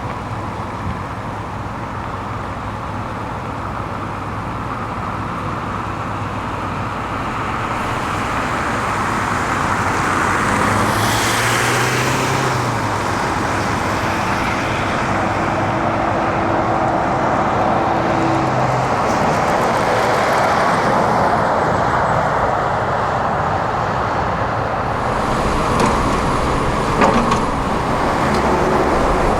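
Heavy diesel construction machinery running and working steadily. The engine noise swells about a third of the way in, a steady whine is held for a few seconds in the middle, and a sharp knock comes near the end.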